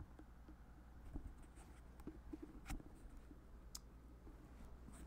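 Faint handling noise of a headset being picked up and put on: a few soft clicks and rustles over a low steady hum.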